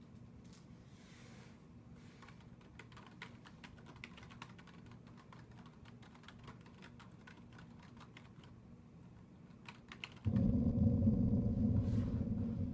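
Typing on a computer keyboard, a quick irregular run of key clicks. About ten seconds in, a sudden loud low rumble starts and holds, drowning out the typing.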